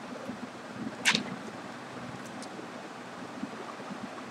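Steady low room noise and microphone hiss, with one brief sharp hiss about a second in.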